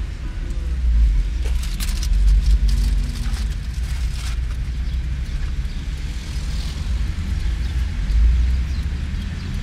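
Car driving, heard from inside the cabin: a steady low engine and road rumble, with a few sharp clicks and knocks about two to four seconds in.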